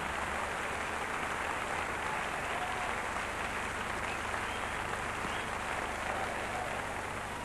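Concert audience applauding steadily between songs.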